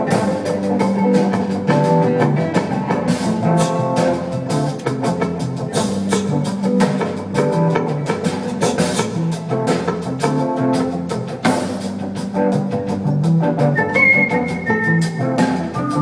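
Live band playing an instrumental passage, guitars and a drum kit keeping a steady beat, heard from the audience in a concert hall. A brief high held note sounds near the end.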